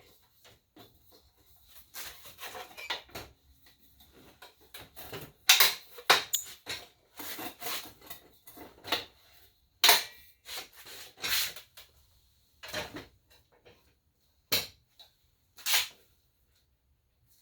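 Metal clanks, knocks and clicks of a Ridgid AC9960 miter saw stand's folding legs and supports being moved and locked, a string of separate impacts with several loud bangs around the middle.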